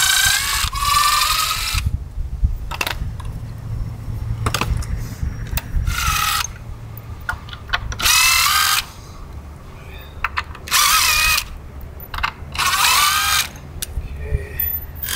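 Power drill run in about five short bursts with pauses between, its motor whine wavering in pitch during each burst.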